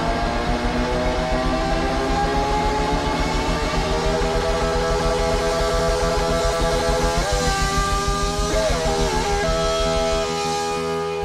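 Blues-rock band playing live: electric guitars hold long, bending notes over a steady drum beat. Near the end the beat stops and the guitars ring on alone.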